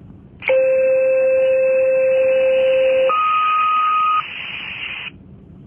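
Two-tone fire dispatch page over a portable radio: the channel keys up with a burst of hiss, then a long steady low tone, then a shorter higher tone. About a second of open-channel hiss follows before the transmission cuts off. This is the tone-out that alerts a department before a dispatch announcement.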